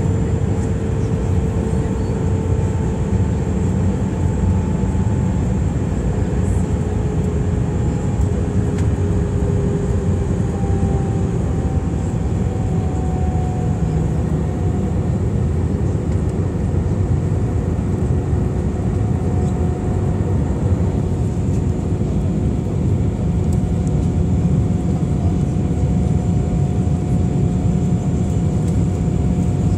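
Cabin noise inside an Airbus A319 in flight on the approach: the steady roar of the airflow and the turbofan engines, with a faint engine whine that slides slightly lower in pitch over the first dozen seconds, then holds steady.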